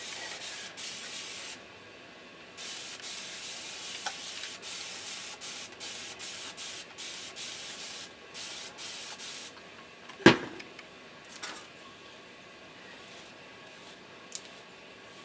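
A plastic spray bottle misting water onto curly wig hair: a string of hissing sprays with short breaks for about nine seconds. About ten seconds in comes a single sharp knock, the loudest sound.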